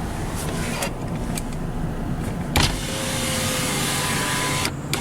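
Inside a moving car, a power window motor runs for about two seconds, starting just after a sharp click about halfway through and cutting off suddenly with a couple of clicks near the end, over the steady rumble of the car.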